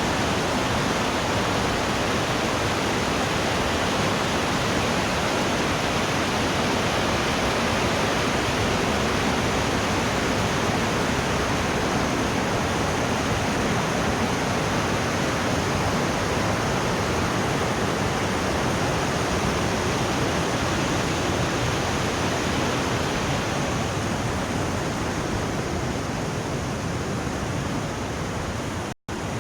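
Steady rushing of the Putna waterfall, water pouring and splashing without a break; it eases slightly near the end and drops out for an instant.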